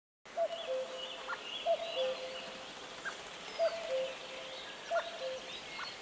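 Birds calling: one repeats a low two-part call four times, about every second and a half, while fainter, higher chirps from other birds sound above it.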